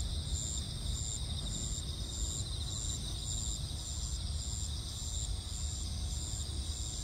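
Crickets chirping: one steady high trill and another insect chirping in a regular beat about twice a second, over a steady low rumble.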